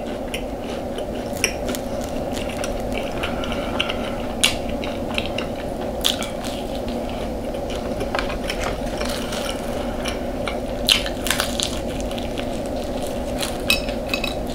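Close-miked eating sounds: bites, crunching and chewing, with scattered sharp clicks and crackles. A steady low hum runs underneath.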